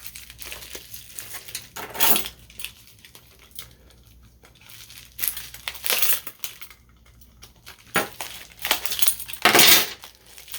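Plastic packaging crinkling and rustling as it is worked open by hand, in several short, louder bursts.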